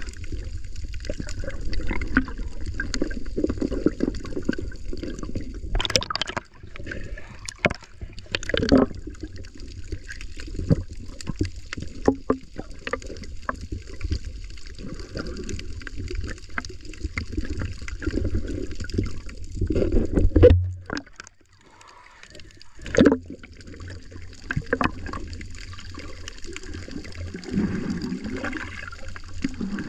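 Water sloshing and gurgling around a camera held underwater by a swimmer, over a steady low rumble, with scattered sharp clicks and knocks. The rumble drops out briefly about two-thirds of the way through.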